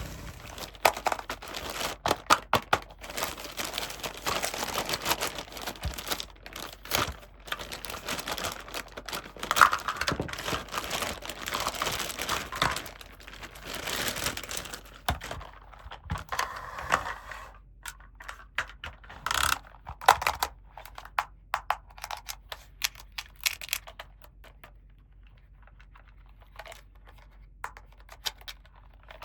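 Small plastic toys and their packaging being handled: crinkling and rapid clicking and tapping of plastic pieces. The clicks are dense for about the first seventeen seconds, then thin out to scattered taps.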